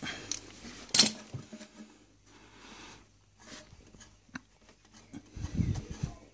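Close handling noises: a sharp click about a second in, then light ticks and rubbing, and a low rumble near the end.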